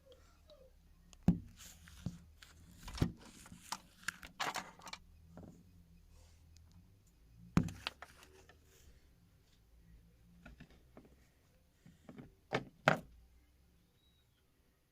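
Scattered knocks and thumps, with some rustling between them and two sharp knocks close together near the end.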